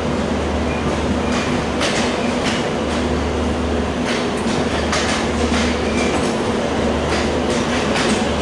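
LHB passenger coach of an intercity express rolling out of a station, its wheels clicking over rail joints at uneven intervals above a steady rumble.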